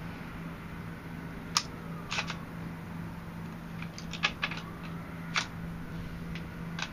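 A dozen or so sharp metallic clicks and clacks of a DPMS AR-15 rifle being handled on its bipod, bunched about a second and a half in and again around four seconds in.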